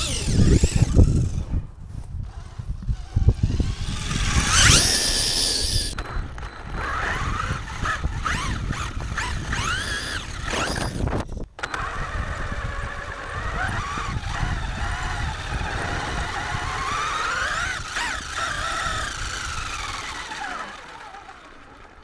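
HPI Baja Flux RC buggy's brushless electric motor and drivetrain whining, the pitch rising and falling again and again with the throttle. Knocks and rattles from the chassis bouncing over rough grass are loudest in the first few seconds.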